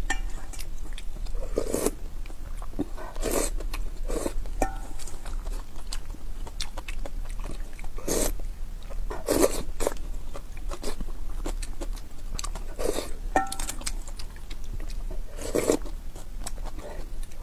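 Close-up eating sounds of spicy noodle soup: loud slurps of broth and noodles sucked from a plastic ladle spoon, repeated every second or few seconds, with chewing and small mouth and utensil clicks in between.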